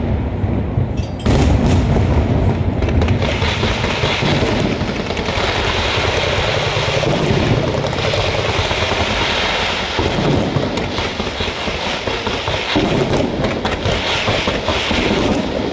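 Fireworks display firing a dense, continuous barrage of rapid overlapping bangs and crackles, with the hiss of fountains and comets underneath. It steps up in loudness about a second in.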